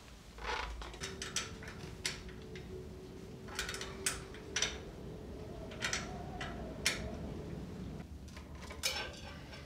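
Scattered light metallic clicks and taps, about ten at irregular intervals, from brake pipe fittings and hand tools being handled while steel brake hard lines are fitted.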